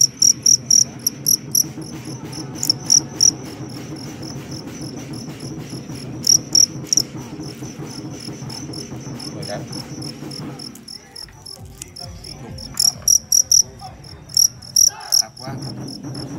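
Male fighting crickets squaring off in an arena, chirping in loud, rapidly pulsed bursts: a chirp train at the start, short ones a few seconds in, and a long run of chirps near the end. Underneath there is a steady low hum that drops out for a few seconds in the second half.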